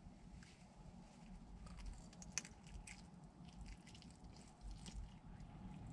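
Faint biting and chewing on a slice of bacon-wrapped deep-dish pizza, with a scattering of soft crunches and clicks from the crispy bacon crust.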